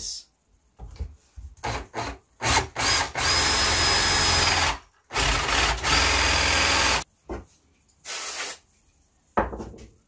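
Cordless drill boring a shallow 30 mm hole into an oak slat: a few short trigger blips, then two runs of about two seconds each with a steady motor whine, and a couple of brief bursts near the end.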